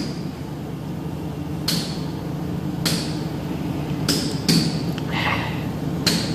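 About six sharp taps against an interactive whiteboard's screen as the toolbar is pressed, spaced unevenly over a few seconds, with a steady low hum underneath.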